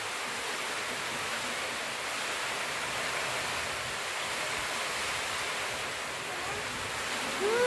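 Steady, even hiss of background noise with no clear source, and a brief pitched sound just before the end.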